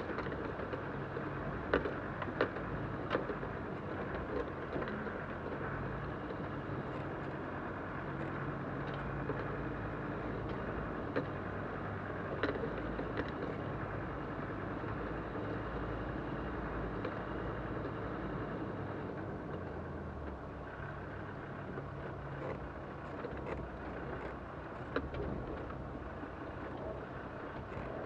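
Land Rover Td5 five-cylinder turbodiesel running steadily as the vehicle crawls down a rough track, heard from inside the cabin, with scattered sharp knocks and rattles throughout.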